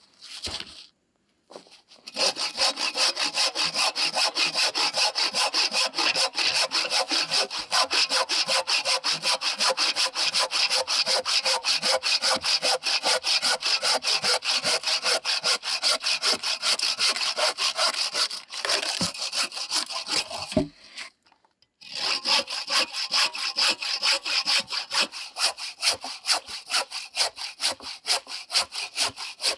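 Handsaw cutting through a wooden plank in fast, even back-and-forth strokes. The sawing stops for about three seconds past the middle, with a couple of knocks in the gap, then starts again.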